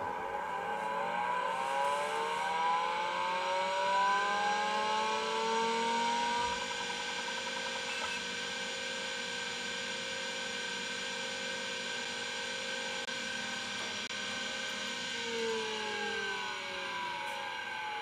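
Seagate ST-225 5¼-inch MFM hard disk spinning up under power: a whine of several tones rises in pitch over about six seconds as the platters come up to speed, then holds as a steady whine. Near the end a few of the tones begin to slide down in pitch.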